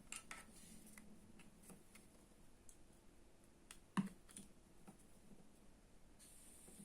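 Near silence with a few scattered faint clicks, the clearest a small knock about four seconds in.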